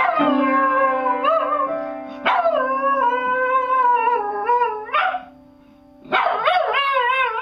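A dog howling along while pressing an upright piano's keys with its paws: three long, wavering howls over sustained piano notes, with a short break just before six seconds in.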